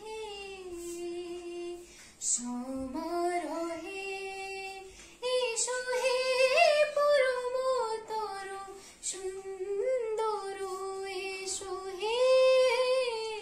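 A young woman singing unaccompanied, a slow melody of long held notes that slide between pitches, with a girl's voice singing along at times.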